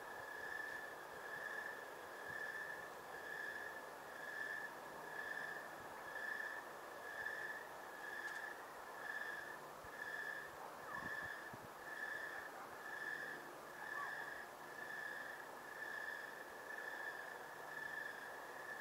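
A night cricket chirping steadily, one even high-pitched chirp a little less than a second apart, over a faint background hiss.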